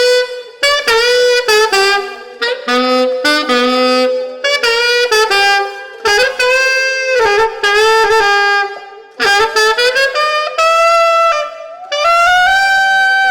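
Saxophone playing short phrases of notes, broken by brief pauses for breath.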